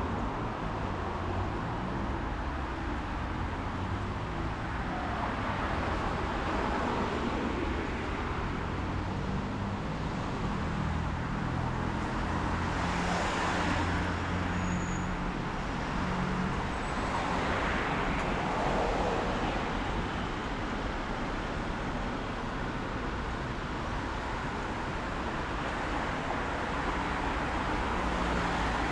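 Road traffic on a rainy city street: a low engine hum from vehicles in the first half, with cars passing by, their tyres hissing on the wet road, near the middle and again about two-thirds through.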